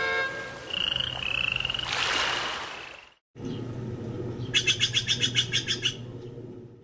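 Animal calls: a few clear whistled notes, then after a short break a rapid pulsing call of about eight pulses a second lasting a second and a half, over a low steady hum.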